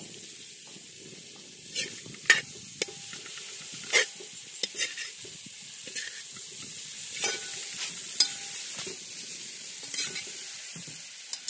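Pre-cooked beef and masala sizzling as they are stir-fried in a large metal pot. A perforated metal ladle scrapes and clinks against the pot about once a second.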